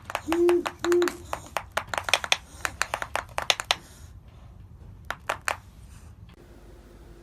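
Owl snapping its bill in a rapid series of sharp clicks, a defensive threat display meant to scare off predators, with two short low hoots in the first second. The clicking thins out after about four seconds, with a last few clicks around five seconds.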